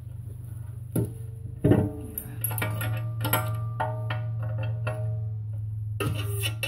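A ratchet wrench knocks twice, sharply, on a heated and rusted hitch nut as it is forced loose, with ratchet clicks near the end. In between there is background music with plucked notes, over a steady low hum.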